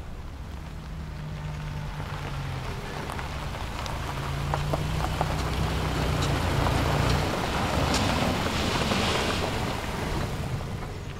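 A Subaru XV crossover driving slowly up a gravel road: low engine hum with tyres crunching and popping on the gravel, growing louder as the car approaches, then easing off as it slows near the end.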